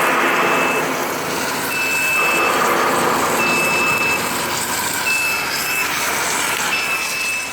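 An electronic warning beeper sounds a high, steady beep of just under a second, repeating about every second and a half, five times, over steady industrial machinery noise.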